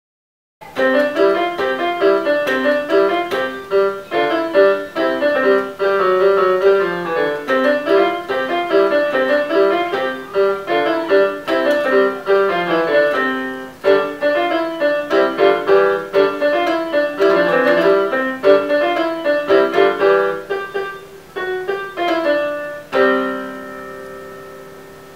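Background piano music: a lively run of short, quick notes that starts about half a second in and ends on a held chord that rings out and fades.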